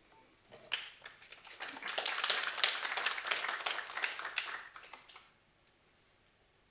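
A small audience clapping: a few scattered claps at first, swelling about two seconds in and dying away about five seconds in.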